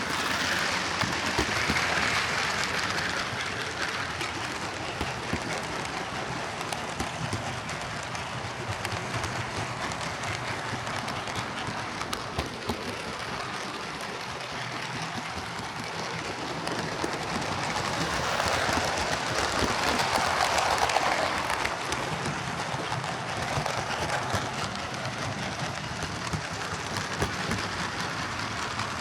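Hornby Class A4 'Mallard' OO gauge model locomotive running on track after its displaced drive gear was refitted, a steady whirring rattle of motor, gears and wheels on rail. It swells louder shortly after the start and again past the middle, as the loco passes close by on a loop.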